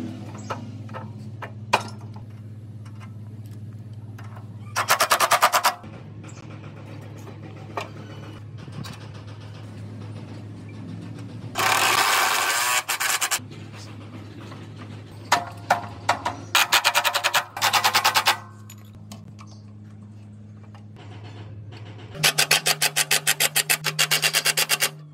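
Cordless impact driver with a socket extension running bolts into a motorcycle frame in several bursts of rapid hammering. There is a short burst about five seconds in, a longer one around twelve seconds, a few quick ones in the middle, and a long run near the end, with a steady low hum underneath.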